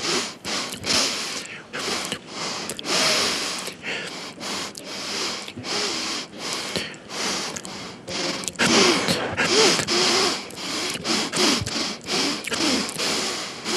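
A man sniffing repeatedly through the nose, a quick run of short sniffs one after another with brief gaps between them.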